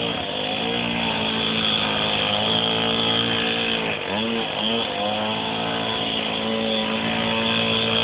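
Small pit bike engine running at steady high revs as it is ridden, the revs dropping and climbing back up about four seconds in.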